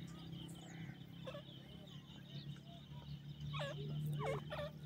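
Pheasants calling: scattered faint chirps, then a quick run of about four short calls that bend up and down near the end, over a low steady hum.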